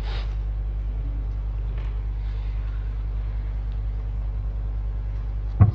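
Steady low electrical hum from the hall's microphone and sound-system feed, with a single sudden thump near the end.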